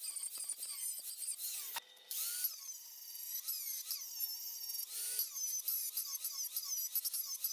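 High-pitched squealing whine of a power tool working steel, its pitch wavering up and down about twice a second, with a brief break about two seconds in.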